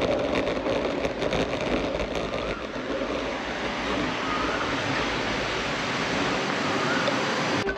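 Steady rush of wind on the microphone mixed with tyre noise from an ElliptiGO rolling over a paved path, with a few faint short chirps over it.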